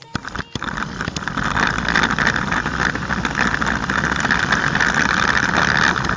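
Homemade RC car running: a small electric motor and rolling wheels make a steady, noisy whirr that drops out briefly twice near the start.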